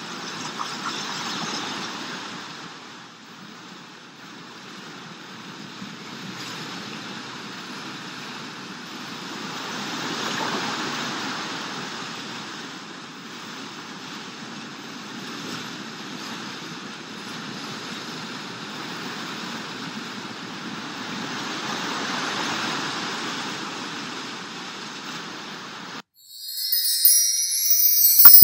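Relaxation background track of rushing water, a steady hiss that slowly swells and fades, which cuts off near the end. It is followed at once by a louder, bright, glittering chime sting: the WeVideo logo outro jingle.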